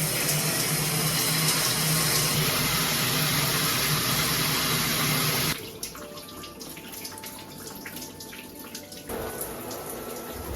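Water running hard from a tap, a steady rush that is shut off about five and a half seconds in. Light clicks and clatter of handling follow.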